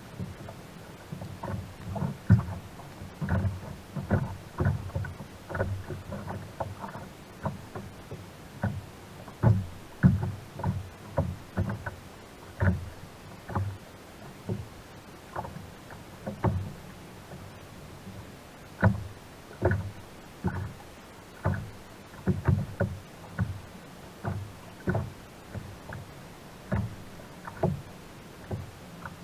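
Small waves slapping against the hull of a plastic sit-on-top kayak, in irregular short low slaps about one or two a second.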